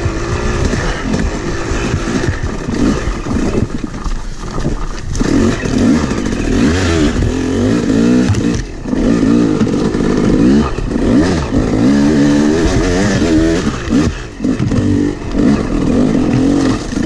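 Yamaha YZ250 two-stroke dirt bike engine being ridden, its pitch rising and falling constantly with the throttle.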